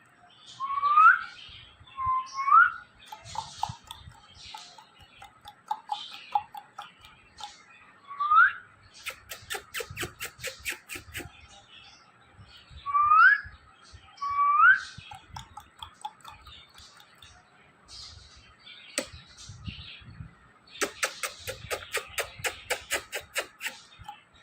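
Indian ringneck parrot giving short, rising whistled calls, five of them spaced a few seconds apart. Two runs of rapid sharp clicks, several a second, come in the middle and near the end.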